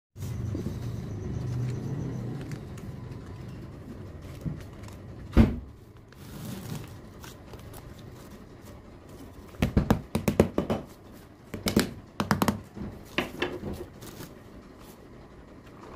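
Plastic tub packed with pink sand being handled and turned over. It is set down upside down with one hard thud, then knocked in quick clusters of sharp taps to release the packed sand from the mould.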